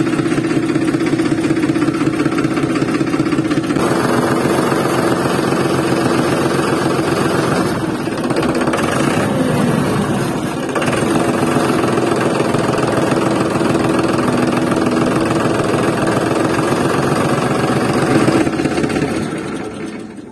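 Engine running steadily with a low pulsing hum. It shifts in tone about four seconds in and again around eight and eleven seconds, then fades out near the end.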